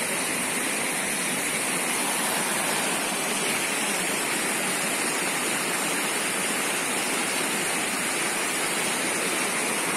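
A waterfall rushing steadily: an even, unbroken noise of falling water.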